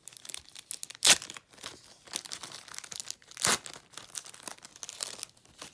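Trading card pack wrapper being crinkled and torn open by hand: a run of crackles with two louder rips, about one second in and about three and a half seconds in.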